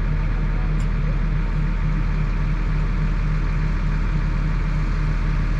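Boom truck crane's engine running steadily, an even low drone with no change in speed.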